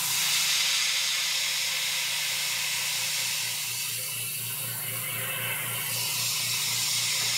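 Airbrush hissing steadily as it sprays paint onto a crankbait. Underneath runs a low hum pulsing about four times a second, typical of a small airbrush compressor.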